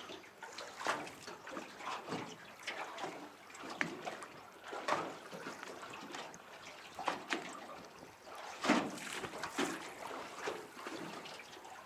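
Small waves lapping and sloshing against the side of a boat's hull in irregular splashes.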